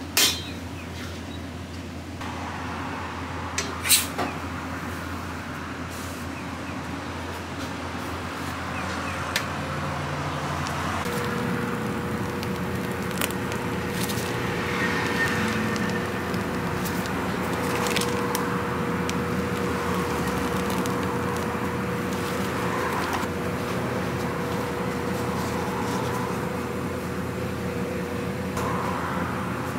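Café kitchen background: a steady hum and hiss of equipment, with a couple of sharp clicks just after the start and about four seconds in, and a steady higher hum joining about eleven seconds in.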